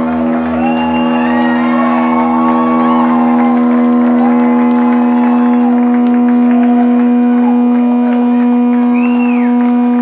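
Live rock band holding one steady, droning low note, with the audience cheering and whooping over it.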